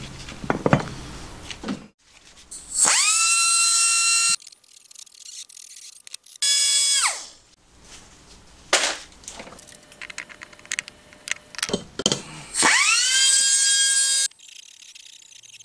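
Handheld high-speed rotary tool grinding a cast aluminium crankcase for crankshaft clearance. It runs in three short bursts; each time it spins up in a rising whine, holds a steady high whine for a second or two, then stops. Between the bursts there are light clicks and taps of metal parts being handled.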